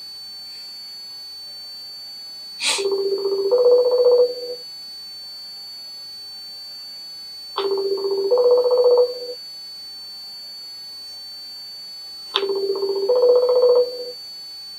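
Phone call ringing while it waits to be answered. The ring is a two-note pattern, a lower note then a higher one, each ring opening with a click and lasting about a second and a half. It comes three times, about five seconds apart.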